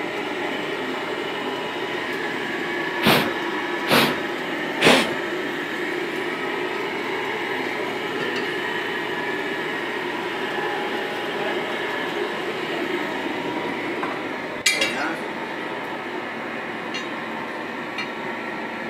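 Steady running of a forge blower. About three seconds in come three sharp metal knocks a second apart, and later a single metallic clank with a short ring as the hot steel meets the anvil.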